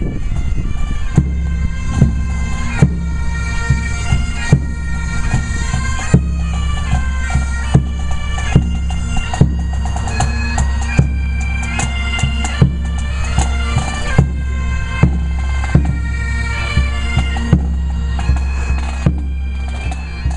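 Pipe band playing: Great Highland bagpipes sound a melody over their steady drones, with a drum struck about five times every four seconds.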